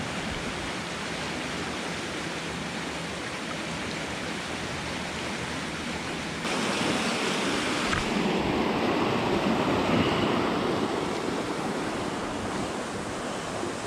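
Spillway water rushing in a steady, even roar, suddenly louder about halfway through.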